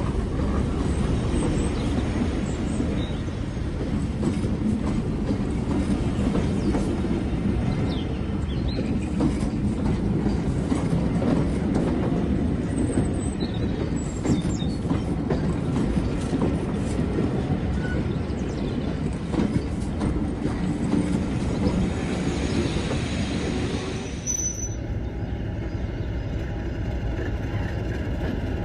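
Train running on the rails: a continuous rumble of wheels on track, with a few faint high wheel squeals around the middle. About 24 seconds in the sound changes to a steadier, lower hum.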